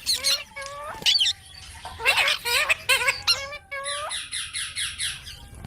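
Parrots squawking and chattering: a string of short, high calls that bend and hook in pitch, with a fast rattling trill about four seconds in.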